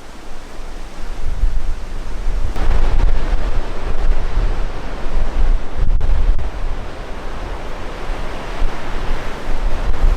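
Wind buffeting the microphone: a loud rushing hiss over an uneven low rumble that swells and dips, stronger from about two and a half seconds in.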